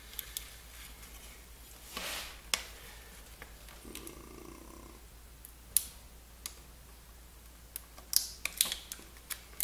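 Rustling and small plastic clicks of a thin keyboard membrane ribbon being worked by hand into its circuit-board connector, the tail catching on the metal contacts and not going in. There are scattered sharp ticks, with a brief rustle about two seconds in and a quick run of clicks near the end.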